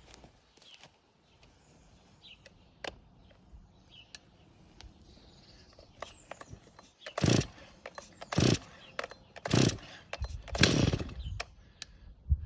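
Stihl MS 260 C two-stroke chainsaw being cold-started by hand. Faint handling clicks come first. About seven seconds in, the starter cord is pulled four times in quick succession, and each pull cranks the engine briefly without it settling into running. The fourth pull is the longest.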